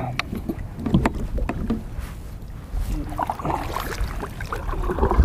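Kayak being paddled while trolling: paddle strokes splashing in the water, with scattered light knocks on the plastic hull and a low rumble underneath.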